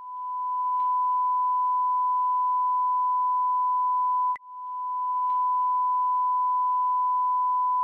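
A steady, high-pitched electronic beep tone, held for about four seconds, breaking off for an instant, then resuming.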